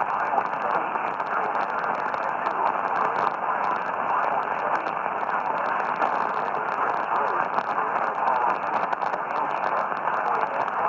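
Steady radio static hiss with scattered crackles, narrow and midrange-heavy as heard through a radio receiver's speaker, between alert broadcasts.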